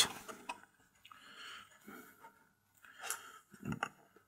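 Laser-cut wooden hull frames of a model ship kit being handled and pressed into their slots: faint scraping and rustling, with a couple of small knocks about three seconds in.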